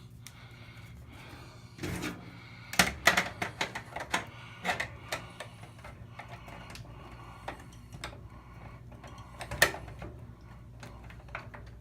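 Small metal tool clicking and tapping against the washer control switch and its plastic mount while pressing in the pin that locks the switch: scattered sharp clicks, a cluster about 2 to 5 seconds in and another near 10 seconds.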